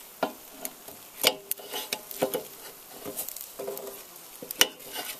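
Metal tongs clicking and scraping against a metal grill grate and the beef ribs as the ribs are turned, several clicks ringing briefly and the sharpest one near the end, over a light sizzle of the cooking meat.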